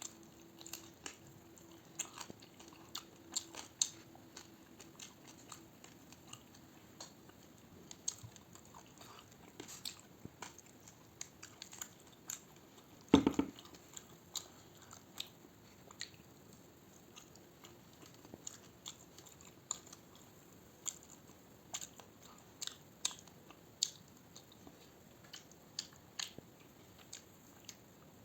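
A person chewing and biting food close to the microphone, with many small wet clicks and crunches at an uneven pace. One much louder thump comes about halfway through.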